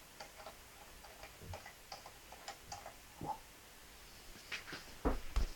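Red Wing one-third-scale model hit-and-miss engine running slowly, its valve gear and mechanism giving light clicks about four times a second. A few low thumps come in, the loudest near the end.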